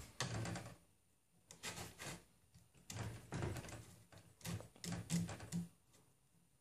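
Rubber toothed timing belt dragged with pliers through a slot in the plastic X carriage of a 3D printer: a few short, soft scraping and rubbing sounds.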